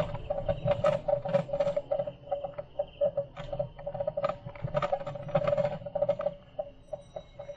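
Bicycle being ridden on a rough road: irregular rapid clicking and rattling with repeated short squeaks, over a low rumble.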